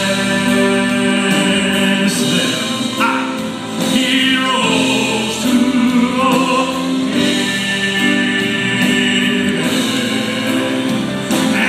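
Southern gospel music: male voices singing in harmony over instrumental backing, with long held notes.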